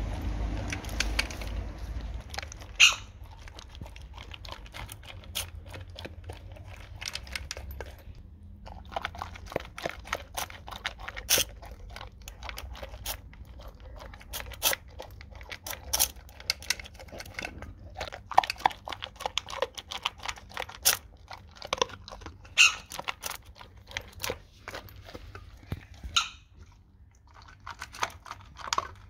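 A dog eating dry kibble from a metal bowl, crunching in an irregular run of sharp bites with a couple of short pauses.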